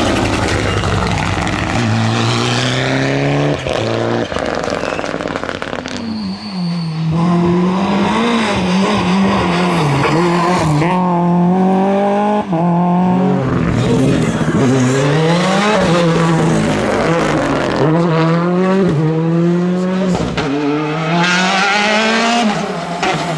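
Rally cars driven flat out on a tarmac stage, one after another: a Mitsubishi Lancer Evolution, a Škoda Fabia and a Peugeot 208. Each engine revs hard, rising in pitch and dropping again over and over as the drivers shift gears and lift for the corners.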